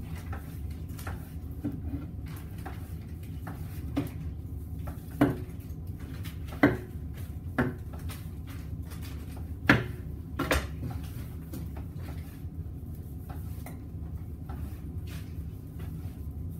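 Knife work on a bone-in ham on a cutting board: a few scattered sharp knocks and taps of the knife and meat against the board, over a steady low hum.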